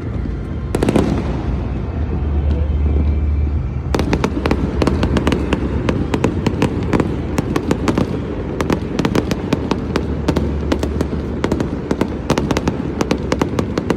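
New Year fireworks going off: a steady low rumble of booms with a loud bang about a second in, then from about four seconds in a dense, rapid crackle of many sharp reports, several a second.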